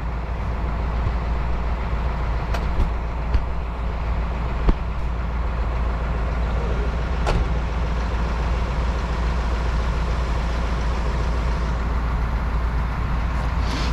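Heavy vehicle engine running steadily at idle, a deep even rumble, with a few short knocks and clicks now and then.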